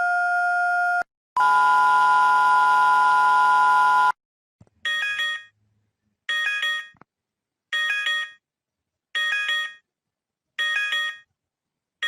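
Emergency alert broadcast tones: a steady tone that cuts off about a second in, then a louder, chord-like tone lasting about three seconds, then five short chime-like beeps about a second and a half apart.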